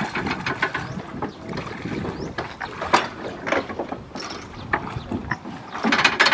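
Irregular metal clanks and rattles as a two-wheel walking tractor (power tiller) is pushed up a metal ladder ramp onto a wooden boat, with one loud knock about halfway through and a dense burst of rattling near the end.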